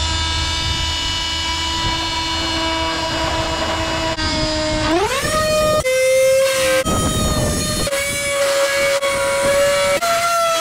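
Small handheld corded power cutting tool running with a steady high whine while it cuts out a panel blank. About five seconds in its pitch jumps up and stays high, with short spells of rasping cutting noise.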